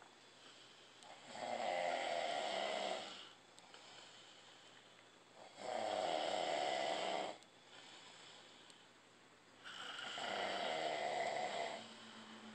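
Loud human snoring: three long snores, one about every four seconds, with quieter stretches between.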